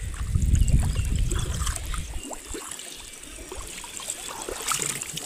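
Pond water splashing and trickling as a wet fishing net is handled and lifted out of the water by a wading man, with a low rumble for the first couple of seconds.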